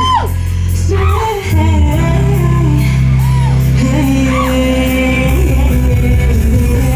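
Live rock band playing in a hall, with long held bass notes under a voice singing and sliding in pitch.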